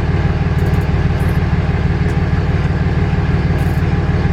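Truck's turbo diesel engine idling steadily, an even low pulsing rumble.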